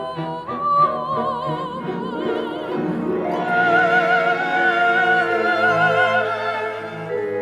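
Classical music: long held melody notes with a wide vibrato over a soft accompaniment, getting louder with a higher note entering about three seconds in.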